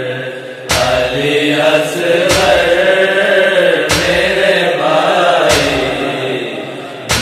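A boy chanting a nauha, an Urdu lament, in a slow, drawn-out melody. A heavy beat is struck about every second and a half, keeping the matam rhythm of the lament.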